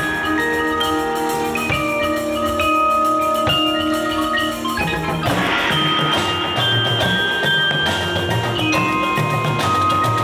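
Show band playing music, with held chords and ringing mallet percussion such as marimba and glockenspiel; about five seconds in the music moves into a new passage with a pulsing low part.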